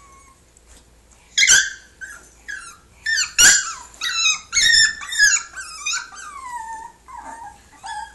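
Papillon puppy, about eight weeks old, whining and yelping in high-pitched cries. A sharp yelp comes about a second and a half in and another about two seconds later, then a run of whines that slide down in pitch.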